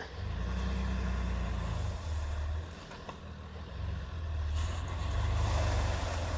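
A motor vehicle's engine running with a deep low rumble that rises and falls, easing off around three seconds in and building again after.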